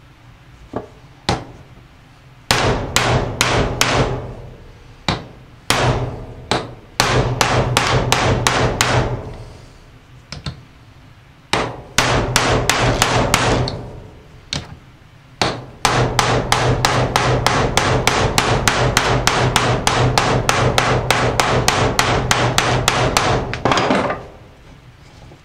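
Hammer blows driving a new wheel bearing into a Polaris Outlaw's aluminium IRS rear carrier hub resting on a wooden block. Two light taps, then bursts of rapid strikes at about four a second, the longest lasting some eight seconds near the end.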